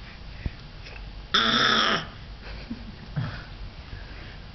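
A baby gives one short, harsh, throaty growl about a second and a half in, lasting about half a second.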